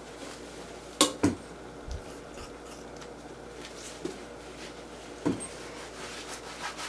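Gloved hands wrapping fiberglass casting tape around a short leg cast: quiet handling and rubbing, with a sharp click about a second in, another just after it, and a few fainter clicks later.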